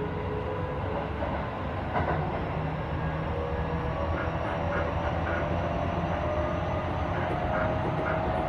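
Hokuso 7500 series electric train heard from inside the car as it gathers speed: the Toyo IGBT VVVF inverter and traction motors whine, their pitch slowly rising over a steady rumble of wheels on rail. A few clicks come as the wheels pass over rail joints.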